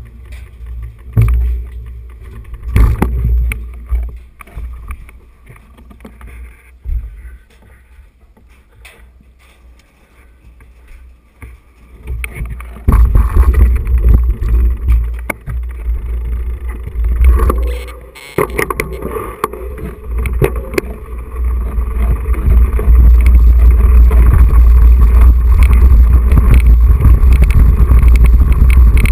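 A mountain bike is handled on metal scaffolding steps, with scattered knocks and clanks. Then, about halfway through, the bike rides over a dirt and grass track, and the action camera picks up loud, steady low rumbling from tyre and road noise and wind on its microphone, loudest near the end.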